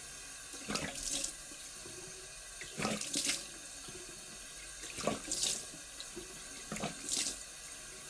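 Tap running steadily into a bathroom sink, with handfuls of water splashed onto the face about every two seconds, four times.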